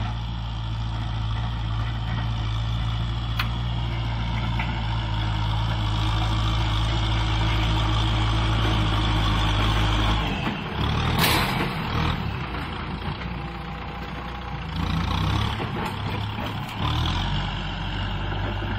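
Kubota M6040 SU tractor's four-cylinder diesel engine running steadily under load while it pushes soil with its front blade. From about ten seconds in the sound becomes closer and more uneven, with a brief loud burst of noise about a second later.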